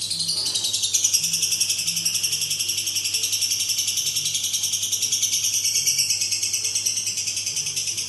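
Lovebird singing its long-duration "ngekek" song: a rapid, unbroken, high-pitched chattering trill, growing a little louder about a second in.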